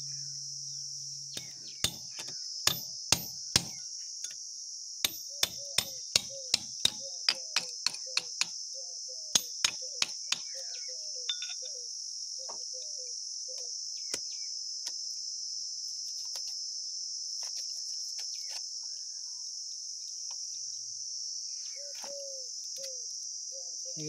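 A run of about twenty sharp knocks, one or two a second, over the first ten seconds or so, as a metal pipe clamp holding a PVC water pipe to a wall is struck and knocked loose. A steady high chirring of crickets runs behind throughout.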